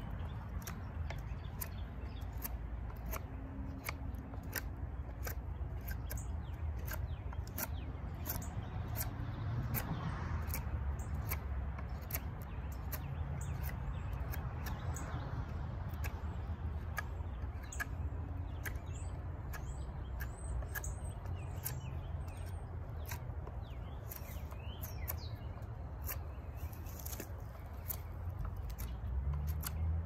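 Fixed-blade knife whittling a wooden stick: a long run of short, sharp shaving and scraping cuts as bark and wood are carved off. Birds chirp briefly now and then over a steady low background rumble.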